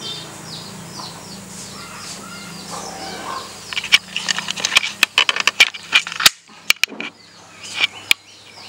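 A bird's repeated short chirps over a low steady hum. From about four seconds in comes a dense run of sharp clicks and knocks, the loudest sounds here, which stop about a second before the end; the chirps carry on after them.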